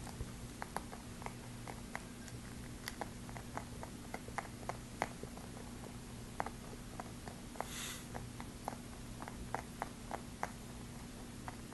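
Pet rabbit chewing oats: a quick, irregular string of small crunchy clicks, a few each second.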